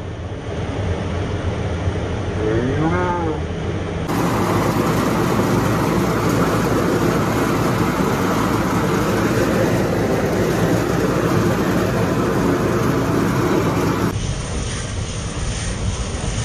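Rice-milling machinery running with a steady, loud mechanical din as paddy is husked into rice. The din grows louder and harsher about four seconds in and eases back near the end. A short pitched call rises and falls about three seconds in.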